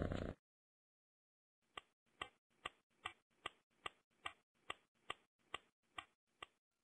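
A cat's purr stops just after the start. After a short silence, a dozen even, clock-like ticks follow at about two and a half a second.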